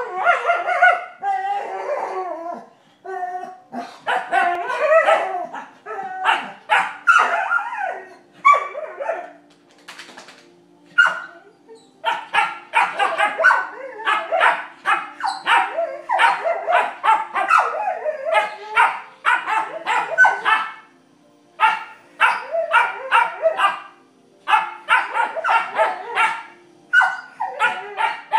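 Vizsla puppy and adult Vizsla barking at each other in play: runs of short, rapid barks and yips, broken by a few brief pauses.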